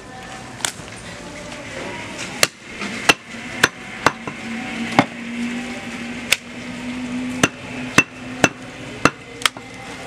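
Butcher's cleaver chopping goat meat on a wooden log chopping block: about a dozen sharp, irregularly spaced chops, some in quick pairs.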